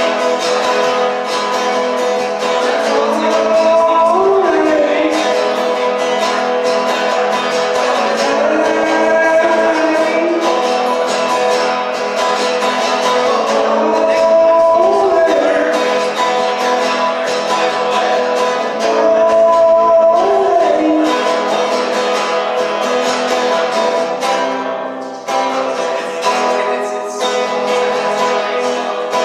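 Live acoustic guitar strumming with a voice singing over it in recurring phrases.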